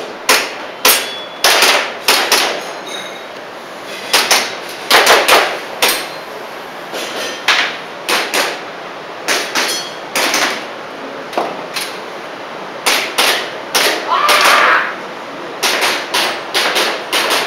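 Airsoft pistol shooting an IPSC Action Air course of fire: a string of sharp snapping shots with the clacks of BBs hitting targets, at irregular spacing and often two in quick succession.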